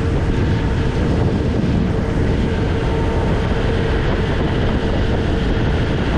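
Tour boat under way at cruising speed: its engine running with a steady hum, mixed with the rush of water from the foaming wake and wind on the microphone.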